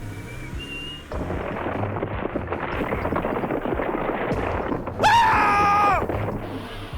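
Cartoon sound effects. About a second in, a dense crackling, rumbling noise starts and runs for about four seconds, like a crash or collapse. Then comes a loud held tone lasting about a second, bending down at its end.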